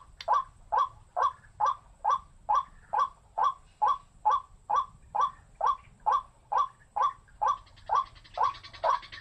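White-breasted waterhen giving its repeated 'wak' call: a steady, unbroken series of short, harsh notes, a little over two a second.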